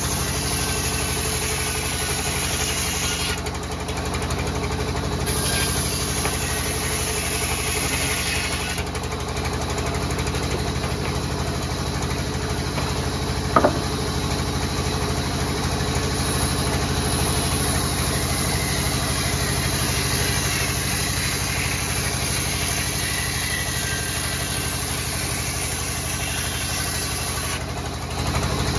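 Large band saw mill running with a steady drone while a wooden plank is fed through the blade and ripped lengthwise, with a hiss that comes and goes. One sharp click sounds about halfway through.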